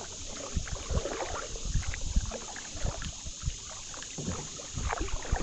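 Kayak paddling on a river: paddle blades dipping and water splashing and lapping against the kayak, with irregular low knocks throughout.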